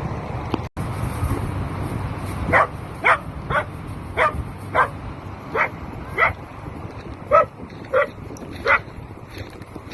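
A dog barking in a run of about ten short, sharp barks, roughly two a second, starting a couple of seconds in and stopping near the end, over a steady background rush of noise.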